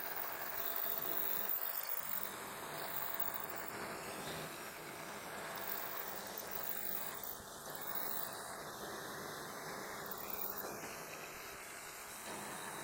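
Milling machine running a 3/8-inch roughing end mill through a shallow groove cut in a metal plate, a steady machining noise.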